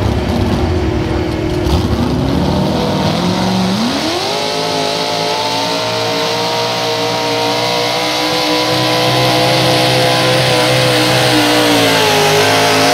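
Mini modified pulling tractor's engine running hard as it pulls the sled. Its pitch climbs steeply about four seconds in and holds high, sagging slightly and rising again near the end.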